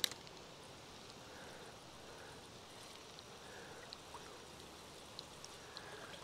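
Faint, steady rush of a clear mountain stream running, with a sharp click at the very start and a few faint ticks scattered through.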